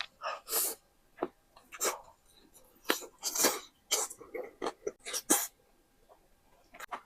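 Close-miked eating sounds: a string of short, irregular mouth noises from chewing and slurping, with a few longer ones about half a second in and near the middle.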